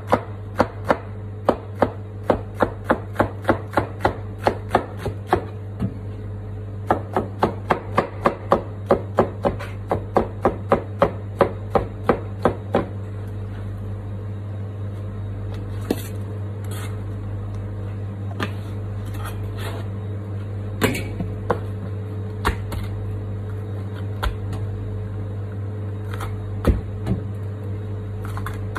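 Kitchen knife chopping red capsicum on a plastic cutting board: quick even strokes about three a second, with one short pause, stopping about halfway through. After that only a few scattered knocks and scrapes of the blade, over a steady low hum.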